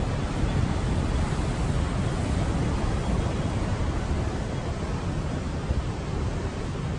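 Wind buffeting the microphone, over a steady hiss of ocean surf breaking on the shore.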